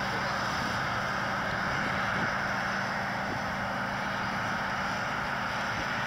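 New Holland TC56 combine harvester running steadily while harvesting rye: a continuous, even drone of the diesel engine and threshing machinery with a hiss over it.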